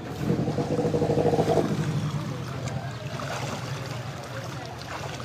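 A boat's motor running steadily as the boat moves through floodwater, swelling louder for a second or so near the start.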